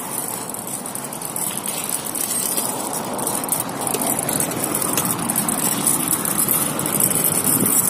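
Steady rushing noise of a bicycle being ridden: tyres rolling over paving and road, with wind on the microphone.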